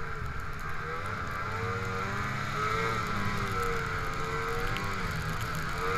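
Snowmobile engine running steadily under way, its pitch rising and falling repeatedly.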